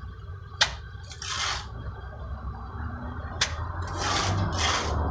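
Steel trowel working cement render off a hawk: a sharp clack of the trowel on the hawk, then a short scraping swish as the render is scooped and spread. This happens twice, about three seconds apart.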